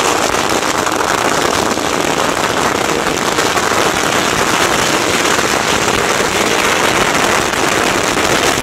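A long string of firecrackers bursting in rapid succession, a dense, continuous crackle of sharp bangs that cuts off suddenly at the end.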